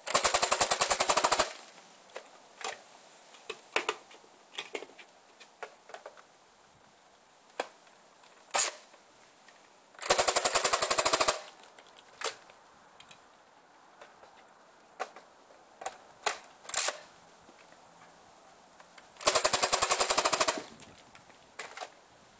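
CO2-charged Nerf Magstrike dart blaster firing three full-auto bursts, each a rapid string of pops lasting just over a second, about nine to ten seconds apart. Scattered single sharp clicks and taps come in between.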